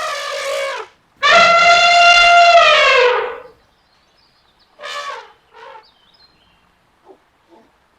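Elephant trumpeting: the tail of one call, then a loud trumpet lasting about two seconds that falls in pitch as it ends, followed by two short, weaker calls.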